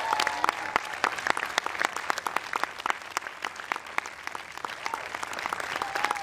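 Audience applauding, with dense clapping that is loudest at the start and eases off a little as it goes on.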